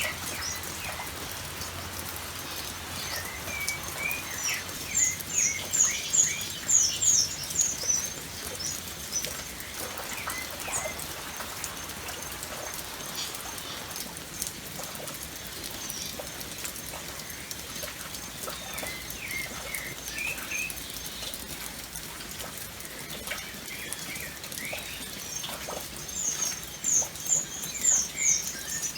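Steady rain pattering, with drips and birds calling over it: runs of quick, high, repeated chirps about four to eight seconds in and again near the end, with scattered lower whistled notes between.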